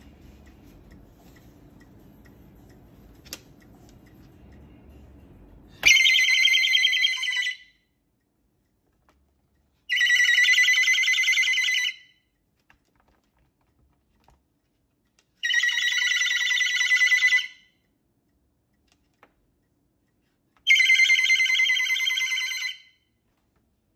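Moluccan cockatoo screaming: four loud, harsh calls of about two seconds each, a few seconds apart, after some seconds of faint room noise.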